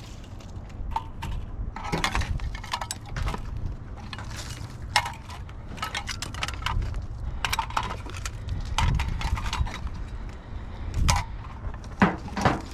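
Loose pieces of scrap metal clinking and clanking as they are picked through and shifted around, with many sharp knocks and rattles coming one after another over a steady low rumble.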